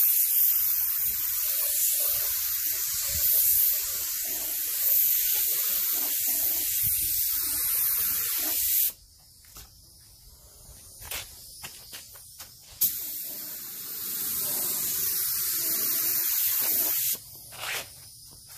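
Compressed-air gravity-feed paint spray gun hissing as it sprays, cutting off suddenly about nine seconds in. A few light clicks follow, then the air hiss returns for about three seconds and stops again.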